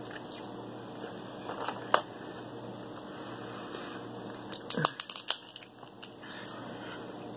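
King crab leg shells being cracked and pulled apart by hand: a few sharp cracks and snaps, with the loudest cluster about five seconds in.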